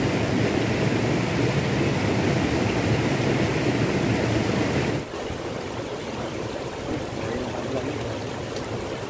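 Shallow stream rushing over rocks, a steady even wash. About five seconds in it cuts abruptly to a quieter, closer flow of water running between stones.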